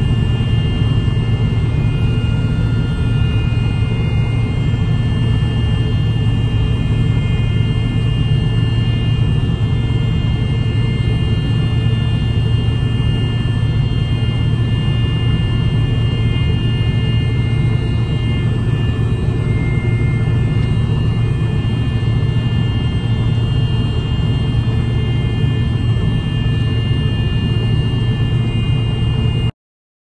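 John Deere combine harvester running while its header cuts wheat, heard from inside the cab: a steady low drone with a few faint, steady high-pitched whines above it. It cuts off abruptly near the end.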